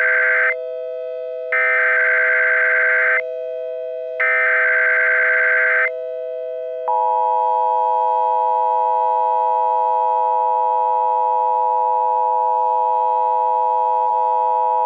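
Emergency Alert System SAME header bursts, the end of one and then two more, each a buzzing data burst about a second and a half long. About seven seconds in, the two-tone EAS attention signal starts and holds steady for about eight seconds. A steady lower tone hums underneath throughout; the tones announce an emergency alert broadcast.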